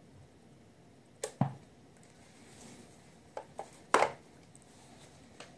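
Handling clicks as alligator-clip leads and wires are fitted to a small metal-cased stereo amplifier, then a louder knock about four seconds in as the amplifier is set down on the desk.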